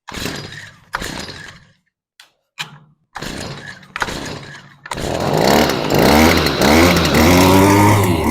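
Two-stroke weed whacker engine with a newly fitted carburetor being pull-started on choke: several short sputters that die out, then it catches about five seconds in and runs, revving up and down.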